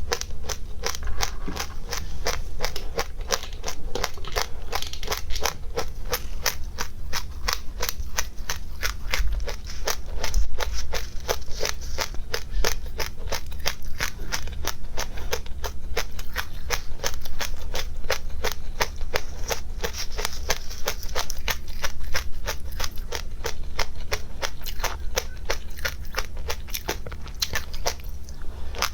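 Crunchy seeds being chewed close to the microphone: a steady run of crisp little crunches, several a second, without a break.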